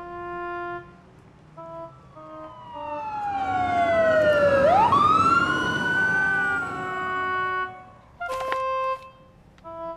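An emergency vehicle siren passes, its pitch sweeping down and then sharply back up. It grows to its loudest about halfway through, then fades away. A light woodwind tune plays at the start and near the end, and a short click comes near the end.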